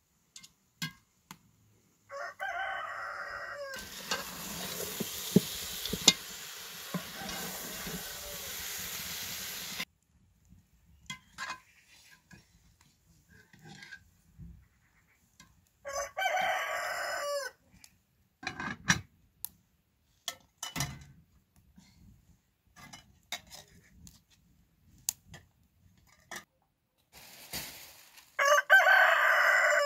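A rooster crows three times: about two seconds in, about halfway through, and near the end. Between the first two crows, food sizzles in a pot for several seconds while a ladle stirs and clinks against the metal.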